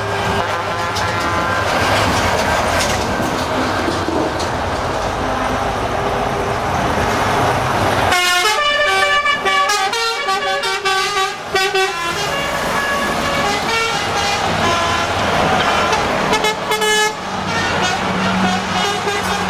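Heavy trucks driving past one after another, diesel engines running, with air horns sounding repeatedly. About eight seconds in, a horn plays a run of changing notes for several seconds, and another short horn blast comes near the end.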